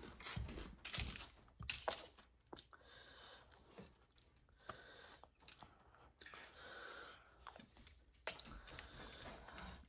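Close-up mouth sounds of someone chewing instant noodles with egg and sausage, with a few sharp smacks and clicks.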